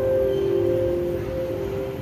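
Chime notes ringing on and slowly fading after a short run of tones, over steady background noise.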